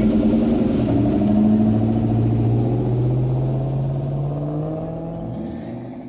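A car engine pulling away, its pitch rising slowly as the sound grows steadily fainter.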